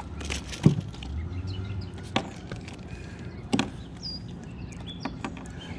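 Several sharp knocks and thumps against a small boat's hull as a caught smallmouth bass is handled, the loudest about a second in, with a low rumble at the start. A bird chirps once near the middle.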